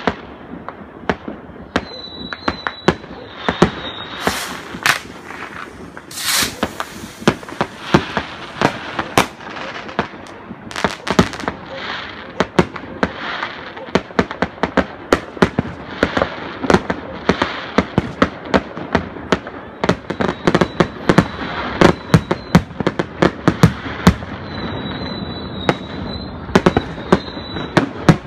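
Fireworks going off in a dense, continuous barrage of sharp bangs and pops, several a second, with a high wavering whistle about two seconds in and again near the end.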